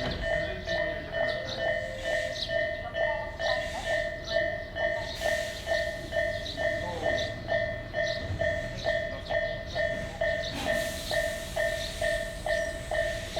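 Japanese level-crossing warning bell ringing in a steady, even rhythm of about two strokes a second. Near the end a train's running noise rises under it.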